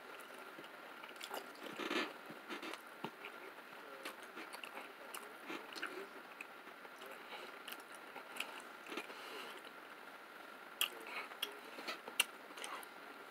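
A person chewing DiGiorno pizza close to the microphone: soft, irregular mouth clicks and smacks, with a few louder clicks near the end.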